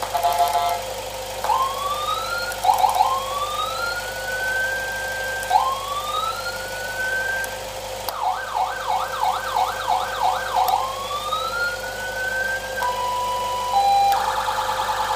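Landun CJB100A electronic siren sounding through a 100-watt speaker, cycling through its tones. It gives several rising sweeps that hold at the top, then a fast yelp of rapid up-and-down sweeps about halfway through. Near the end it switches to a two-tone hi-lo and a rapid pulsing tone, with a steady hum underneath.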